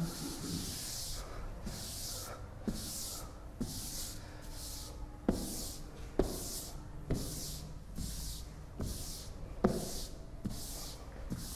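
Chalk writing on a blackboard: a long run of short scratchy strokes, about one and a half a second, broken by sharp taps of the chalk against the board, the loudest about nine and a half seconds in.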